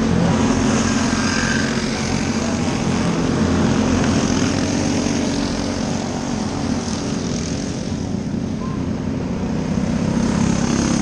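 Several dirt-track race car engines running at speed, a continuous buzzing drone that swells and fades as the cars come around past the flag stand.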